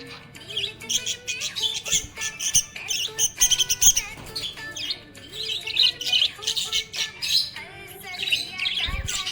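Budgerigars chirping and warbling in a rapid, continuous chatter, with a brief low thump near the end.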